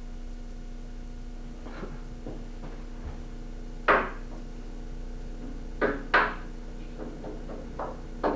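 Several sharp knocks and taps over a steady electrical hum: a faint one about two seconds in, the loudest about four seconds in, a close pair about six seconds in, and small ones near the end.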